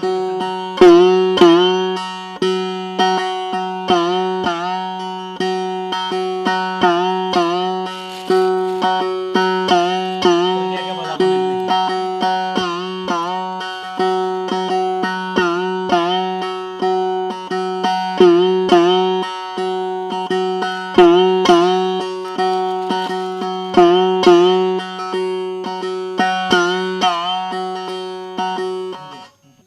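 Instrumental music in an Indian devotional style: a plucked string instrument, sitar-like, plays notes that bend in pitch over a steady drone. It breaks off just before the end.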